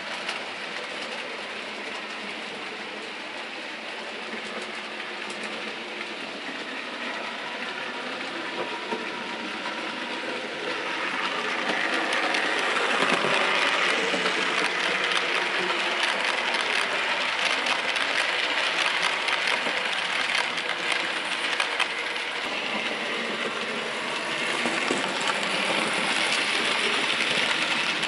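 An OO gauge model train running on the layout: a small model tank locomotive's motor and a rake of coaches rolling along the track, with light clicking of wheels over rail joints. It gets louder about eleven seconds in as the coaches pass close by.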